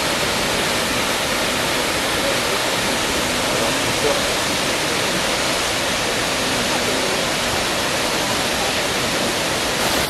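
The Triberg Waterfalls, water falling over rock, making a loud, steady rush.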